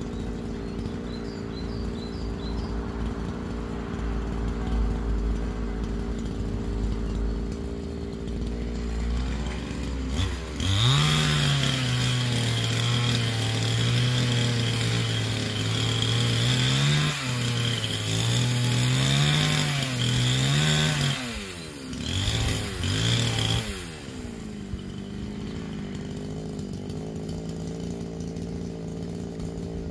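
Chainsaw idling, then revved up about ten seconds in and run at full throttle for roughly eleven seconds, its pitch dipping and rising as it cuts into a tree trunk. It eases off briefly, revs once more, and drops back to idle about twenty-four seconds in.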